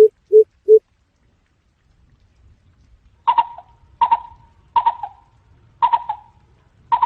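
Greater coucal calling. It ends a series of deep, evenly spaced hoots, about three a second. After a pause of about two seconds come five sharper, higher notes, each about 0.7 s apart.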